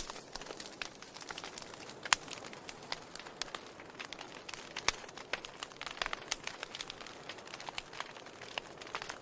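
Burning wood crackling: irregular sharp pops and snaps over a faint steady hiss, with two louder pops about two seconds in and about five seconds in.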